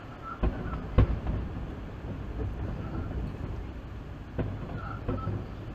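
Distant fireworks shells bursting: three sharp booms, the loudest about a second in, over a steady low rumble.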